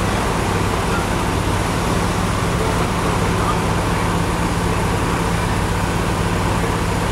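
Heavy diesel truck engine running steadily at low speed, a constant low drone.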